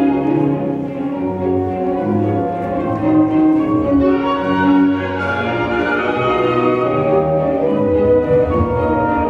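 Orchestral classical music with bowed strings, playing a flowing melody of held notes as the dance accompaniment.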